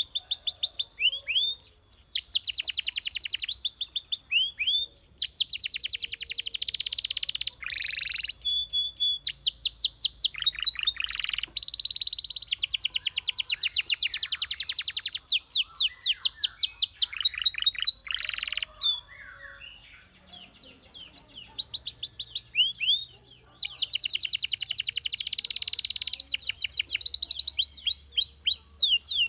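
Belgian canary singing: long, fast trills of rapidly repeated high notes, changing from one roll to the next, with a brief pause about two-thirds of the way through.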